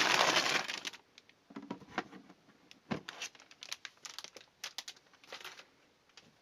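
Packaging being handled during a motherboard unboxing: a loud crinkle for about the first second, then scattered lighter crinkles and small clicks that die away near the end.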